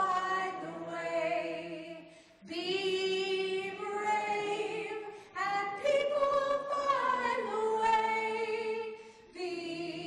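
Unaccompanied singing of a simple melody, in held phrases of two to three seconds with short breaths between.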